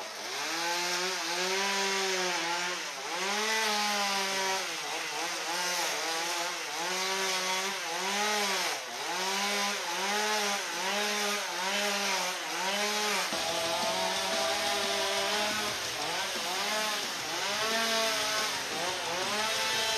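Chainsaw cutting into a block of ice, its engine pitch rising and falling about once a second as the blade is worked in and out of the ice.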